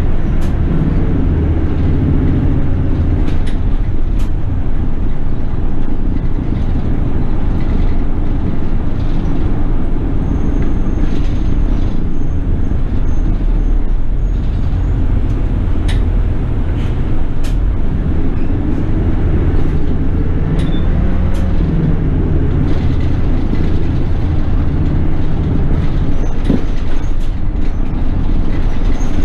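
City bus heard from inside the passenger cabin: the engine runs with a steady low drone that shifts in pitch as the bus moves, with scattered short clicks and rattles.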